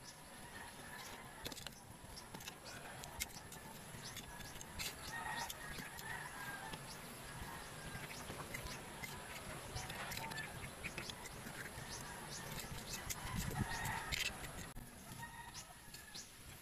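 Garden ambience with birds chirping here and there, scattered small clicks and rustles, and a steady faint high whine. A louder low rustle comes about fourteen seconds in.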